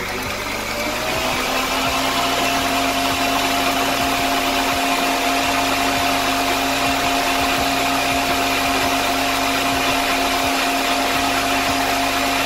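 Hanabishi stand mixer running at high speed, its whisk beating egg whites with cream of tartar in a stainless steel bowl. The motor's whine climbs in pitch over the first second or two as it comes up to speed, then holds steady.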